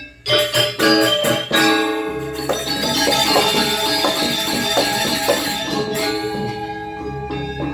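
Balinese gong kebyar gamelan playing dance accompaniment: a few loud, sharp accented strokes, then a fast, dense passage of metallophones with the bright shimmer of crash cymbals.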